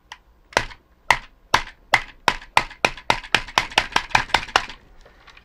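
Fingers rapping on the plastic shell of a TOMY FlipBot toy robot, about sixteen sharp knocks that come faster and closer together, to jar its gummed-up, oxidized motor brushes into making contact and turning.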